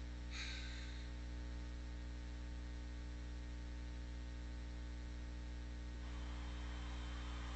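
Steady electrical mains hum with a stack of overtones, with a brief hiss about half a second in and a rising hiss joining the hum from about six seconds in.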